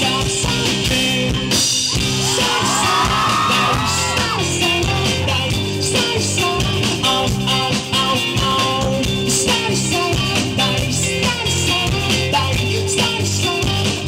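Live indie rock band playing loudly, with electric guitar and the lead singer singing hard into the microphone over the full band.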